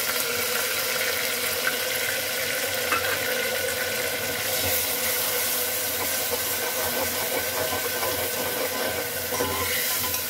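Ground onion paste sizzling steadily as it hits hot oil and fried onions in an aluminium pressure cooker, with a spatula stirring and scraping in the second half.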